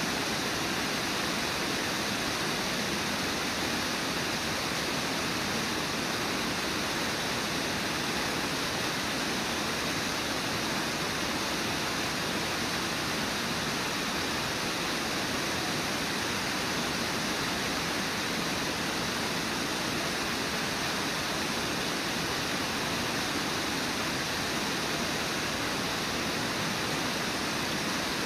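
Water pouring over Brooks Falls, a low, wide river waterfall: a steady, unbroken rush of whitewater.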